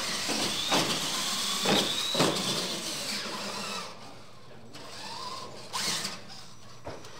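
Radio-controlled monster trucks launching and racing: their motors whine, rising slowly in pitch, over tyre noise, with a few sharp knocks in the first couple of seconds. The noise drops about four seconds in, and a shorter burst of motor whine follows near the end.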